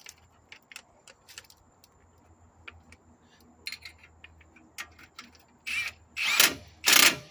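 Faint clinks of tools on metal, then about six seconds in, three short bursts of a power impact gun driving a bolt.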